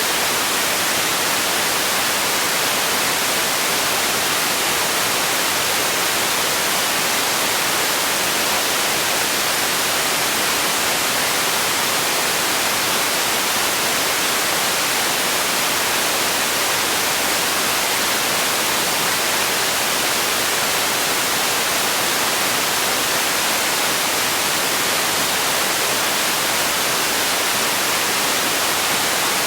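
Steady white noise played as a sleep sound: an even, unchanging hiss, brightest in the treble.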